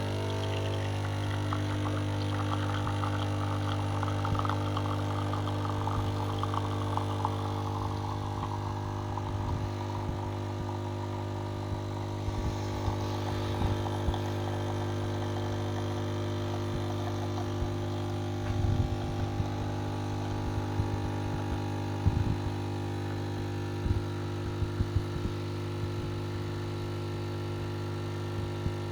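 Saeco fully automatic coffee machine's pump humming steadily while brewed coffee runs into a cup. The stream spatters over roughly the first ten seconds and then goes quiet, with a few short clicks later on. It is a normal brew, with the machine's water circuit vented of air.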